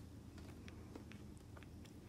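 Bobcat kitten suckling at a bottle nipple: faint, irregular little clicks and smacks over a low steady hum.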